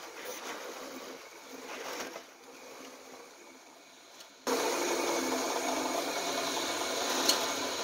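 Benchtop drill press running, its bit boring into wood for the first couple of seconds, then the motor running more quietly. About four and a half seconds in, a much louder rasping machine noise starts suddenly and continues.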